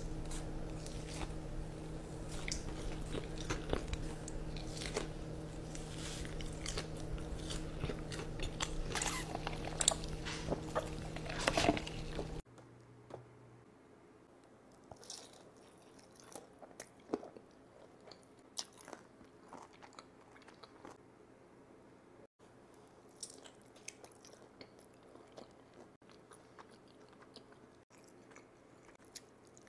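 Eating sounds: biting and chewing a sauce-glazed chicken tender dipped in ranch, many small mouth clicks over a steady low hum. About twelve seconds in it cuts to quieter, sparser chewing of cheesy noodles and crispy fried chicken.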